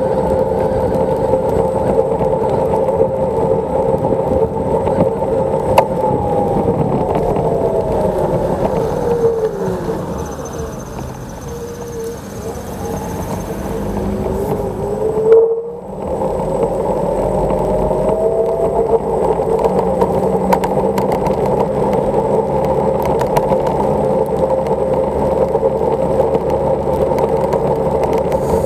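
Xiaomi Mijia M365 electric scooter riding on a wet road: a steady electric whine from the hub motor over road and tyre noise. Around the middle the whine slides down in pitch and climbs back up as the scooter eases off and speeds up again, and a short loud knock comes about halfway through.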